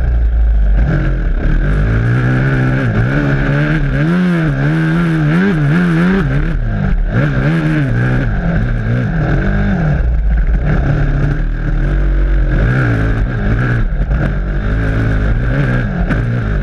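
Honda dirt bike engine running hard on a trail, revving up and down repeatedly through the first half and running steadier later. It is heard close up from the bike, with a strong low rumble of wind and bumps under it.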